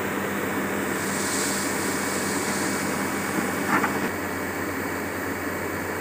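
XCMG XE210i crawler excavator running steadily as it digs and swings a loaded bucket, with a brief hiss early and a short sharp sound a little before four seconds in, after which the engine note drops slightly.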